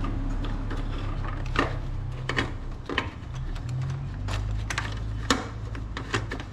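Hand tools and parts clicking and knocking during engine-bay work, about ten sharp clicks spread unevenly, over a steady low hum.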